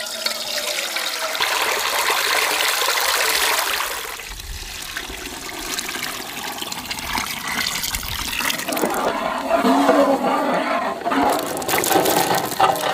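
Tamarind water poured from a large metal pot through a perforated steel strainer, a steady gushing splash for about four seconds. After that, quieter sloshing as the thick curry is stirred with a wooden paddle.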